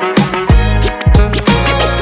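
Background music with a steady, heavy beat and a melody over it.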